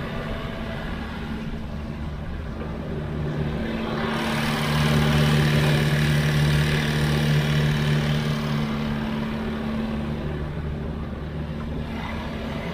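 Sany excavator's diesel engine running steadily. About four seconds in it grows louder and works harder, then eases back about ten seconds in.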